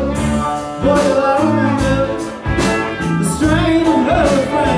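Live rock/country band playing: electric guitars, organ and drums with singing, as heard from the audience.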